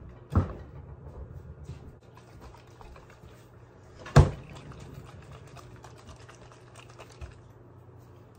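Handling noise from a small plastic-capped juice shot bottle: light clicks and taps as it is picked up and its cap is worked. There is one sharp knock about four seconds in, the loudest sound, and a softer thump just after the start.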